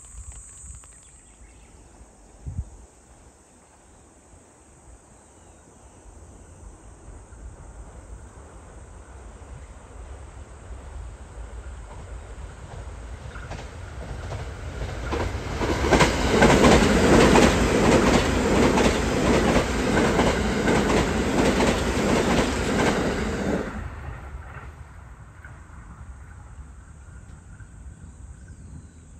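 JR East E657 series limited-express electric train approaching and passing close by: a noise that builds over several seconds into a loud stretch of wheels running over the rails with rapid clicks, which drops off suddenly as the last car goes past and then fades.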